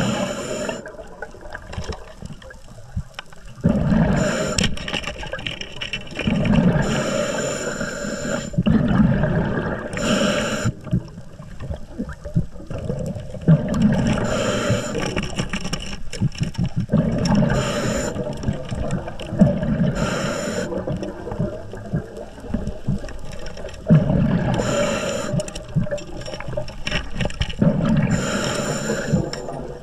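Scuba diver breathing through a regulator underwater: a short hissing inhale, then a gurgling rush of exhaled bubbles, repeating about every three to four seconds.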